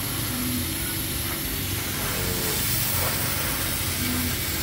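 CNC laser cutting machine running a cutting pass through 18 mm plywood, one of several passes at 40% power and 1000 mm per minute: a steady airy hiss over a low hum.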